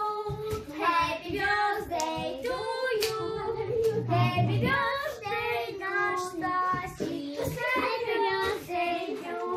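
A child singing a melody with held, gliding notes.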